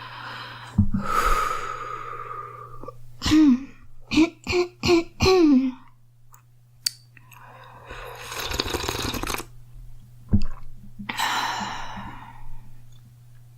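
A girl coughing: a long breath, then a quick run of about five coughs about three seconds in, followed by more loud, noisy breaths.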